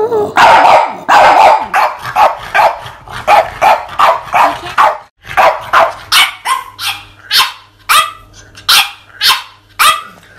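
A French bulldog barking over and over in short, sharp barks, about two or three a second.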